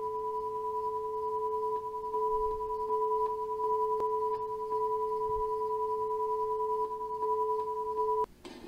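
Broadcast test tone sounding with colour bars: two steady electronic tones, a lower one and a fainter higher one, held together and cutting off suddenly near the end. It is the line-up tone a TV station sends out when its programme feed drops.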